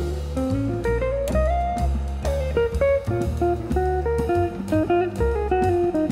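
Background music: a plucked acoustic guitar melody over bass and a drum kit, in a light jazzy style.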